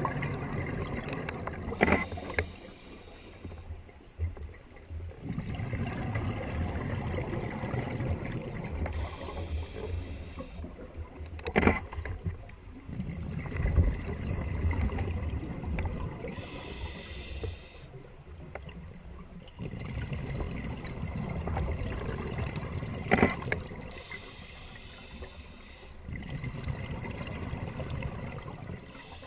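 Scuba diver breathing through a regulator underwater, heard through a submerged camera. Several-second spells of exhaled bubbles alternate with quieter pauses and short high hisses, in a slow cycle of about seven seconds, and a few sharp clicks come at the start of some exhalations.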